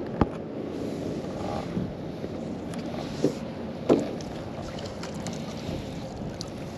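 Steady wind noise on the microphone while a magnet-fishing rope is hauled up hand over hand, with a few short sharp knocks of the rope handling, one about a quarter second in and two around three to four seconds in.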